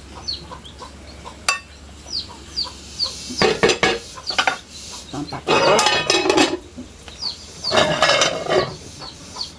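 Chickens clucking, with a steady run of short high peeps about twice a second. Pots and dishes clink and clatter now and then, including a sharp clink about a second and a half in and louder clattering in the middle and near the end.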